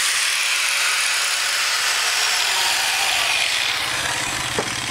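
Handheld electric angle grinder with an abrasive disc running at full speed, making a steady, loud, high-pitched noise. A low hum joins it about three seconds in, and the sound cuts off suddenly at the end.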